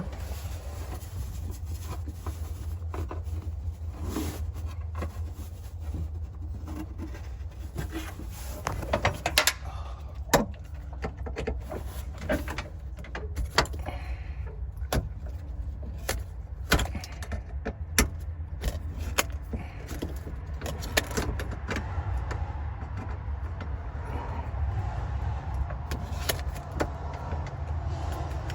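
Scattered metallic clinks and knocks of hand tools and parts being handled while working on a car, over a steady low rumble.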